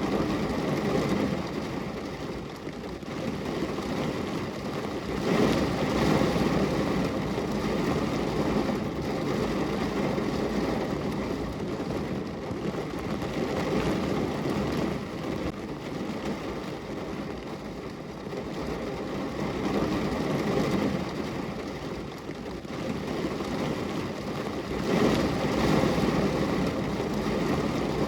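Steady rain falling, an even hiss-and-rumble that swells louder now and then and eases back.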